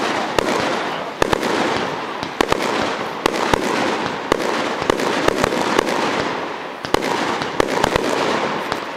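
Fireworks going off in rapid succession: a continuous rushing hiss with many sharp, irregularly spaced cracks and bangs.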